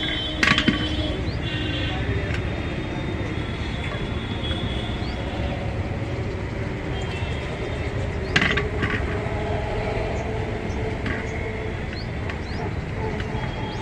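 Steel tyre levers knocking against a car's steel wheel rim as a tyre is levered off by hand: two sharp clanks, about half a second in and about eight seconds in, over a steady low background rumble.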